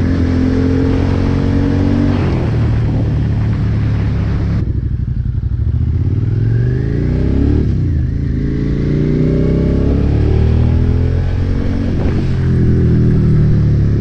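2017 Suzuki SV650's V-twin running through a Yoshimura Alpha carbon slip-on with the silencer insert left out, on the road. The engine note sinks as the bike slows, then climbs as it accelerates, with a quick dip in pitch at a gear change about eight seconds in and another about twelve seconds in.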